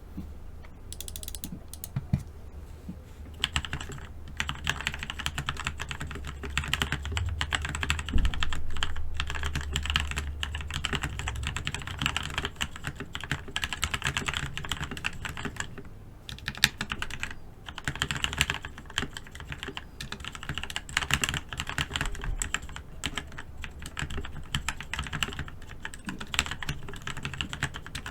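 Typing on an E-Element Z88 mechanical keyboard fitted with lubed Outemu red linear switches, a foam mod and lubed stabilisers: a few scattered keystrokes at first, then a fast, dense run of key clacks with a couple of brief pauses.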